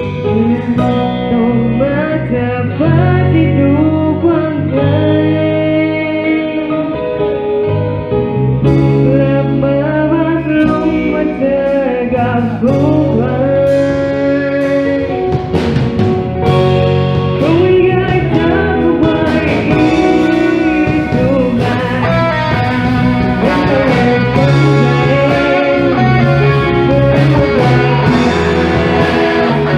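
A band playing a song, with guitar, bass and drums under a sung melody line.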